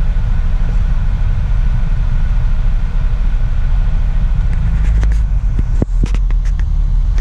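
Steady low rumble of a car's engine and road noise heard inside the cabin as it moves slowly in traffic, with a few short sharp clicks in the second half.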